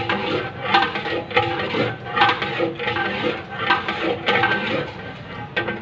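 Long metal ladle scraping and clanking against the inside of a large cooking pot (degh) as food is stirred, with a sharp clank about once a second and the metal ringing between strokes.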